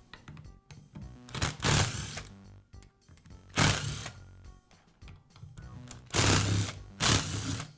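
Small electric power driver whirring in several short runs, each about half a second long, as it backs out the screws holding the gearbox to the grinder's motor housing, over background music.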